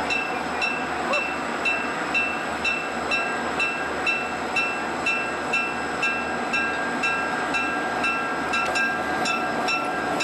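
Diesel passenger special led by Union Pacific E9 locomotive 951 passing slowly, its engines and wheels rumbling steadily. A bright ringing ding repeats about twice a second throughout, and steady high tones come in more strongly in the second half.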